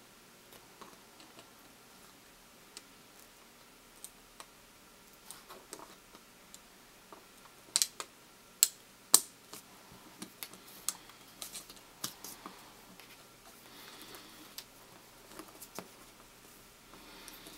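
Scattered small clicks and taps of hands handling a laptop's plastic casing and parts, with three sharp, louder clicks close together about eight to nine seconds in.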